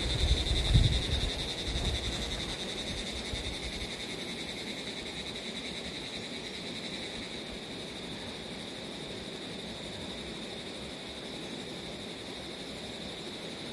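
Steady high-pitched chorus of insects, a fast-pulsing buzz, over faint outdoor background. Low thumps and rustling in the first couple of seconds.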